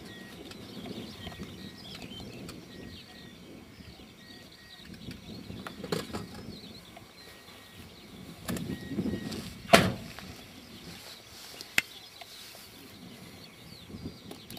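Handling noise from close to the model: scattered knocks and clicks, the loudest a sharp click just before ten seconds in. Under it runs faint outdoor background with small birds chirping.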